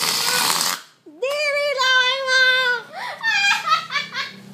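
A short hiss lasting under a second, then a girl's voice holding one long high note for about a second and a half, followed by more wavering, excited vocalizing.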